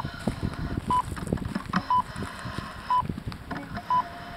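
Electronic race start timer beeping a short high beep about once a second, marking off the last seconds of the countdown to the start, over low wind rumble.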